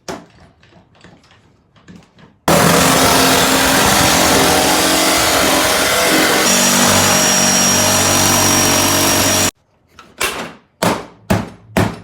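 A loud motor-driven tool runs for about seven seconds, starting and stopping abruptly, with a high whine added about two-thirds of the way through. Light clicks and knocks of handling come before and after it.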